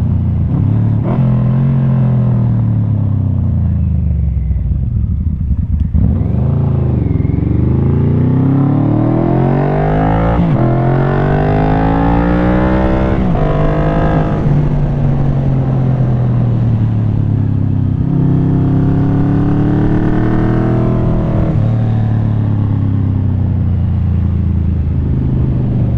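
1995 Yamaha Vmax 1200's V4 engine through a Delkevic carbon slip-on exhaust, accelerating through the gears. The pitch falls off early on, then climbs hard from about six seconds in, drops sharply at upshifts around ten and thirteen seconds, holds steady for a few seconds, then climbs again and drops at another shift.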